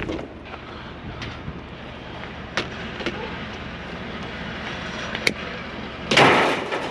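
Vehicle running with a steady engine and road hum, a couple of faint clicks, and a short, louder rush of noise about six seconds in.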